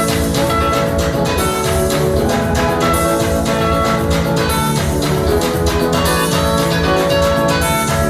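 Loud dance music with a steady drum beat and a bright, repeating melody.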